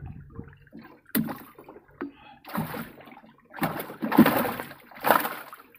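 Water splashing in several short bursts, with a sharp knock about a second in, as a fishing trotline is hauled in by hand over the side of a small wooden boat.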